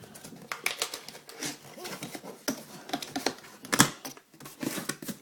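Cardboard product box being handled and opened by hand: a run of irregular clicks, taps and scrapes, the loudest knock a little under four seconds in.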